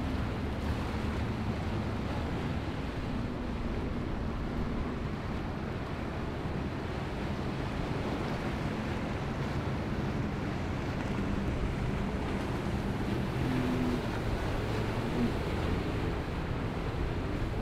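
Large motor yacht running under power: a low engine drone under the steady rush of its bow wave and wake, with wind on the microphone.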